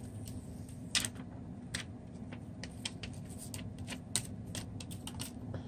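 Plastic protective film being peeled off a new smartphone's screen, giving irregular crinkling crackles and sharp clicks over a low steady hum.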